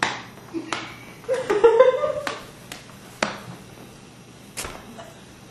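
A puppy's booties tapping on a hard floor as it takes a few stumbling steps: about six sharp taps, irregularly spaced about a second apart. A short rising vocal sound comes about a second and a half in.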